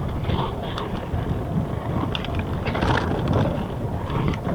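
Mountain bike riding down a rough trail: tyres rolling over the ground, with scattered knocks and rattles from the bike and wind on the microphone.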